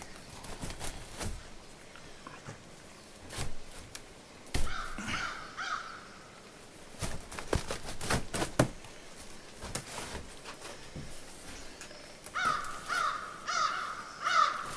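Burned-out sheet-metal stovepipe being handled and worked loose from the wood stove: scattered clanks and knocks of thin metal, the loudest about four and eight seconds in. Twice, about five seconds in and again near the end, comes a run of harsh, caw-like squawks.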